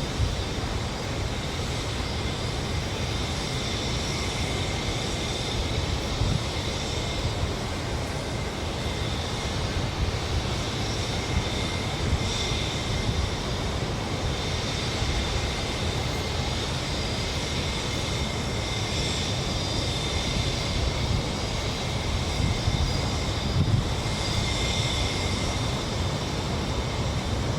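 Steady outdoor background noise: a low rumble, like wind on the microphone or distant heavy machinery, with a thin, high, steady whine over it and no clear single event.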